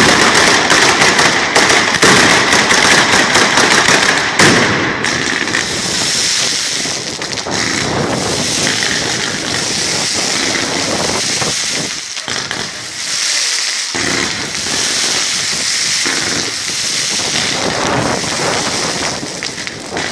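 A batteria, a chain of firecrackers strung on poles, going off: a rapid rattle of bangs for the first four seconds or so, ending in one bigger bang. After that comes a softer, continuous crackling.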